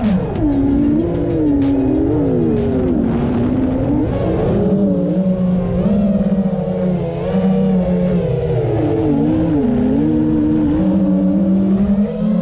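A motor revving up and down, its pitch rising and falling again and again, with a steady lower hum underneath from about four seconds in.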